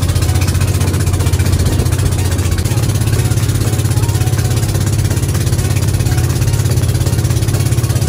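Motorized outrigger boat's engine running steadily under way, a continuous low throb, with a rush of wind and water spray over it. The throb shifts a little about three seconds in.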